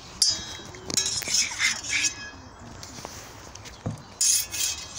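Swords clashing in sparring: a sharp ringing clang about a quarter second in, then several more rapid clinks and clashes of blades around the middle and again near the end.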